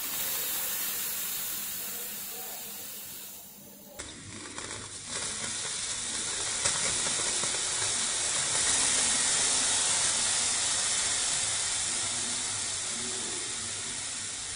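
Small electrolytic capacitor connected in reverse polarity hissing as it overheats and vents under a current of about 8 amps: the sign of the capacitor failing. The hiss swells to its loudest in the middle and slowly fades near the end.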